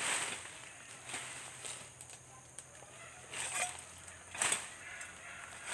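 Parang (machete) swishing and chopping through undergrowth: a few separate strikes, one at the start and two close together past the middle, the last the loudest, with leaves and stems rustling.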